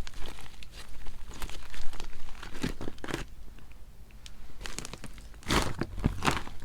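Slime being worked by hand, giving a run of small crackling clicks and pops, denser and louder about five and a half seconds in.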